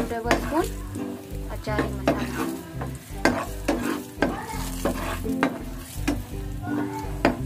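A steel spoon stirring and scraping a garlic and red chilli tadka in hot oil in a frying pan, with repeated scrapes against the pan over a steady sizzle of the oil.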